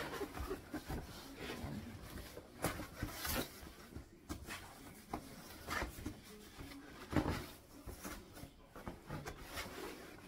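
Cardboard shipping box being opened by hand: irregular rustling and scraping of the cardboard flaps with scattered knocks, the loudest a thump about seven seconds in as the shoebox inside is handled.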